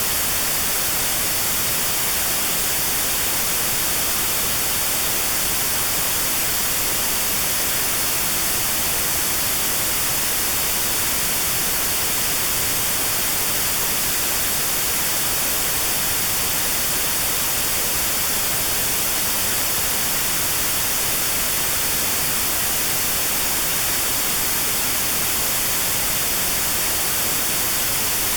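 Steady white noise with a narrow band around 4 kHz removed: notched sound therapy for tinnitus at 4 kHz. It is an even, unchanging hiss, brightest in the treble.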